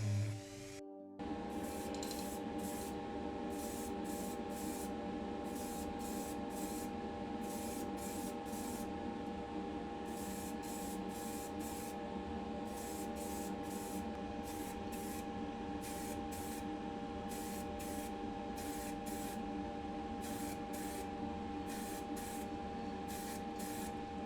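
Paint being sprayed onto a small diecast car body in repeated short bursts of hiss over a steady hum, as the primer and then the colour coat go on.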